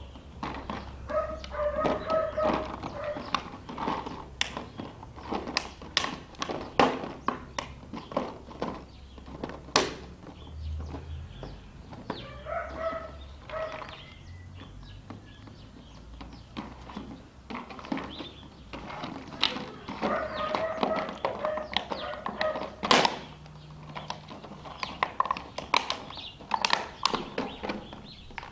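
Empty plastic bottles on a rod in a wooden treat-dispenser being bashed and spun by a dog's nose and paws: irregular hollow knocks and clatters, with three short stretches of a higher-pitched wavering squeak.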